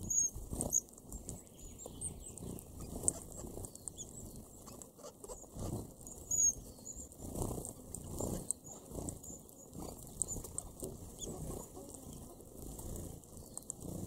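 A flock of red-browed finches giving many short, thin, high-pitched calls while they feed among seed husks, over a soft, repeated rustling and scuffling of small birds moving and pecking in the husks.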